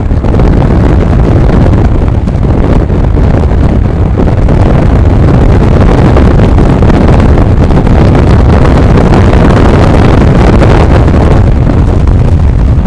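Kawasaki Ninja motorcycle riding at road speed, with wind rushing over the microphone in a loud, steady roar over the bike's running noise.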